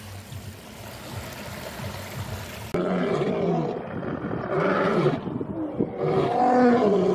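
Running stream water for the first few seconds, then suddenly two male lions roaring, a series of loud, long roars in groups about a second or two apart.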